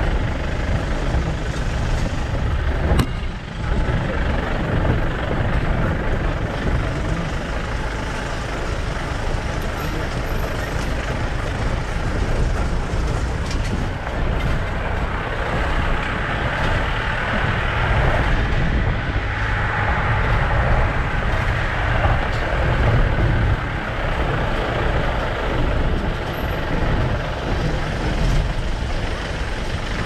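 Jeep driving along a rough track: the engine runs with a steady low rumble under constant road noise, with a brief dip about three seconds in.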